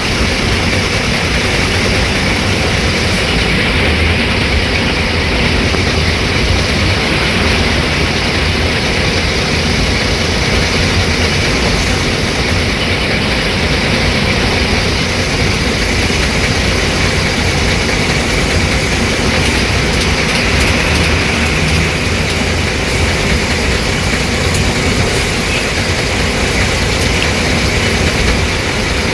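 Tata 1510 bus's diesel engine running steadily, a continuous heavy low rumble with no change in speed.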